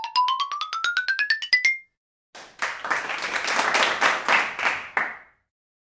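A quick rising run of short pitched notes, climbing steadily in pitch and ending about two seconds in. After a short gap comes about three seconds of clapping, which then stops.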